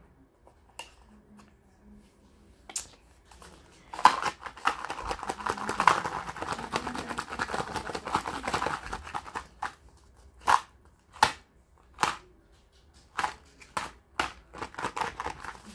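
Paper or paper packaging being handled close by. First comes several seconds of continuous crinkling and rustling, then a string of separate short rustles and taps.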